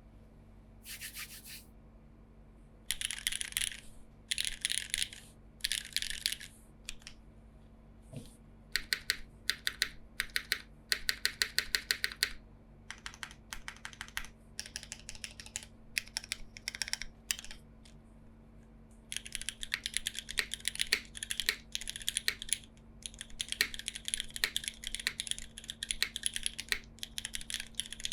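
Typing on a Krush65 mechanical keyboard with lubed Cherry MX2A switches, an aluminium plate and GMK keycaps: quick runs of keystrokes broken by short pauses and a few single presses, then steady typing through the last third.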